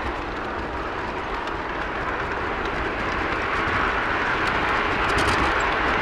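Garden-scale model train running along its track, heard from a camera riding on one of its wagons: a steady rolling rumble and hiss that grows slightly louder, with a few faint clicks about five seconds in.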